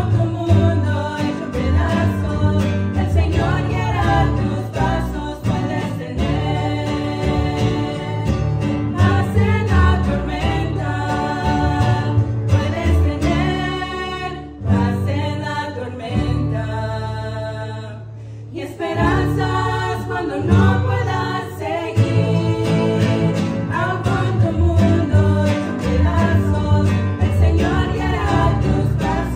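Live Spanish-language worship song: several women's voices singing together into microphones, accompanied by acoustic guitar and upright bass. The music thins out and drops in level briefly about eighteen seconds in, then comes back in full.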